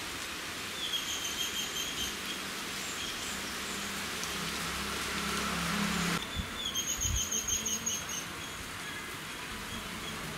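Outdoor ambience: birds chirping in short trilling calls over a steady background hiss, which changes abruptly about six seconds in.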